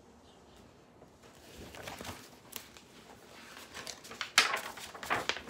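Pages of a picture book being handled and turned: paper rustling starting about a second and a half in, with a loud sharp flap of the page near the end.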